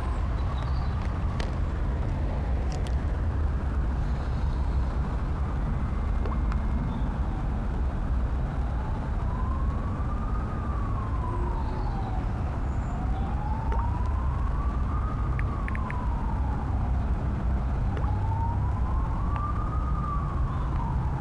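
Emergency-vehicle siren in a slow wail, its pitch rising and falling about every five seconds, over a steady low rumble.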